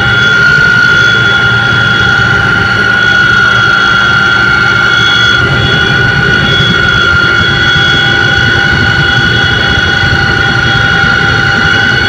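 Aircraft engine and propeller drone heard from inside the cockpit, loud and steady, with a constant high whine over a low rumble.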